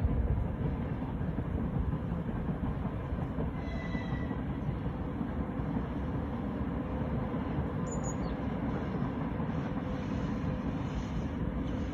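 Freight train rolling past, a steady low rumble of wagons on the rails with a few faint wheel squeals.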